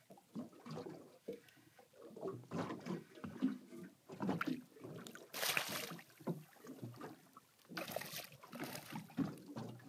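A hooked spangled emperor splashing at the surface beside a small boat as it is reeled in, with several louder splashes and water knocking against the hull.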